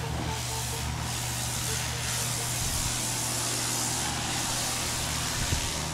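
Electric pressure washer running: a steady motor-and-pump hum under the hiss of the water jet spraying, the hiss growing stronger about two seconds in.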